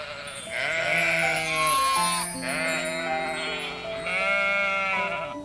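Three long, wavering bleats from a sheep or goat, each bending down in pitch at its end, over steady background music.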